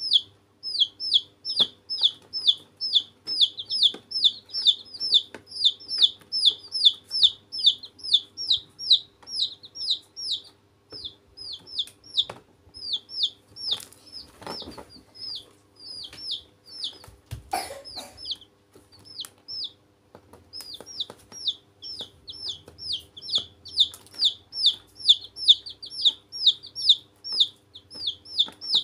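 Domestic chicks peeping loudly and continuously, rapid high calls several a second, with a brief lull about two-thirds through. A couple of soft knocks come midway.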